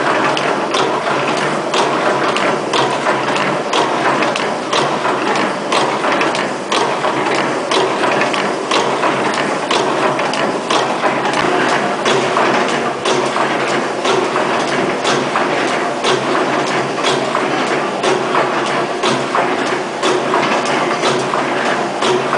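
Automatic rope-tipping machine (SKY-201A) running, a steady mechanical clatter with a sharp click about once a second as its tipping cycle repeats.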